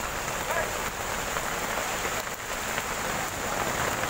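Heavy rain pouring onto a paved road and puddles: a steady, even hiss.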